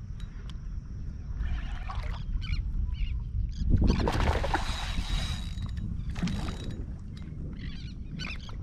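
Water splashing as a hooked ladyfish thrashes at the surface, in a loud burst lasting over a second about four seconds in and a shorter splash a couple of seconds later, over a steady low rumble.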